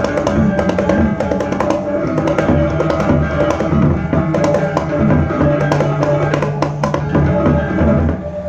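Balinese gamelan ensemble playing a bebonangan-style piece: steady interlocking gong-chime tones over drums, with many sharp percussive strokes. The loudness drops briefly right at the end as the texture changes.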